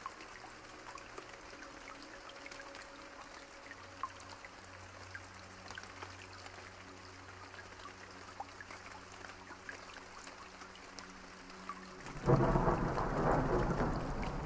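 Soft, quiet background music with long held notes that change pitch a few times, over faint scattered ticks. About twelve seconds in, a loud rushing, rumbling noise like rain suddenly takes over.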